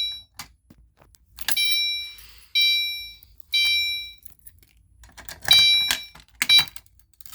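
Fire alarm horn sounding in a temporal pattern: three electronic beeps about a second apart, a pause, then two more, the second cut short as the alarm stops. Sharp clicks of the device being handled come near the end.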